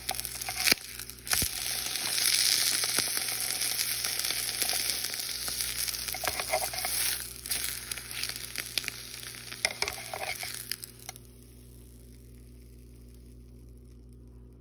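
An egg frying in oil in a small nonstick pan: a steady crackling sizzle with a few sharp scrapes and taps of a spatula against the pan. The sizzle dies away about eleven seconds in, leaving only a faint low hum.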